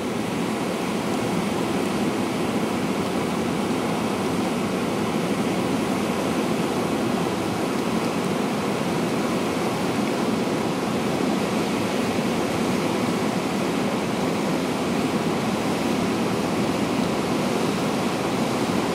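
Whitewater of Tanner Rapids on the Colorado River rushing steadily, an even, unbroken noise of churning water.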